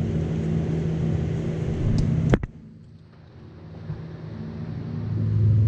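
A steady low mechanical hum, broken by one sharp click about two and a half seconds in, after which the hum drops away and gradually builds back up.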